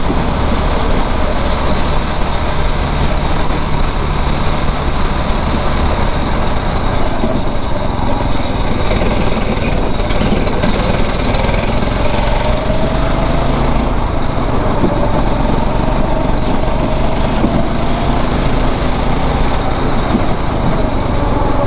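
A 9 hp kart engine running continuously under way, heard from on board, its pitch rising and easing slightly as the kart drives the track.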